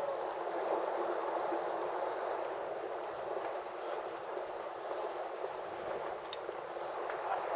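Harbour water lapping and gurgling in a steady wash, with a couple of light clicks near the end.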